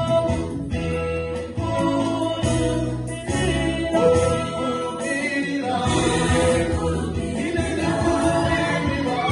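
Group of voices singing a gospel song in chorus over electronic keyboard accompaniment.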